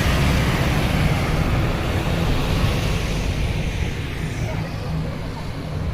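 Heavy road vehicle passing close by, its engine and tyre rumble fading steadily as it moves away.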